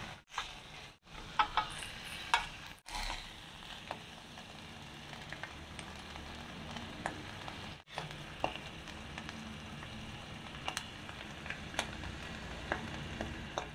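Yellowfin tuna in sauce sizzling in an electric pan, a steady hiss, with sharp clicks and scrapes of a metal fork and spoon against the pan as the fish is lifted out. The sound breaks off briefly a few times.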